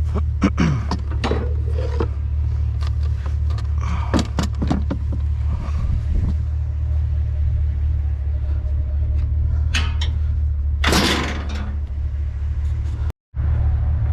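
Truck driving, a steady low engine and road drone with a few knocks and rattles in the first few seconds and a brief louder rush of noise about eleven seconds in. The sound cuts out for a moment near the end.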